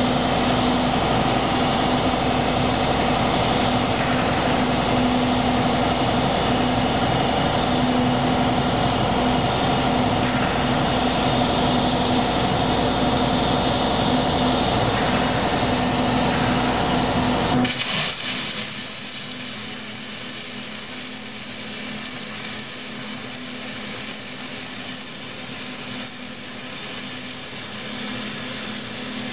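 Robotic welding cell running with a steady machine hum that cuts off abruptly about eighteen seconds in, giving way to the quieter, steady crackle of the robot's arc welding the steel frame.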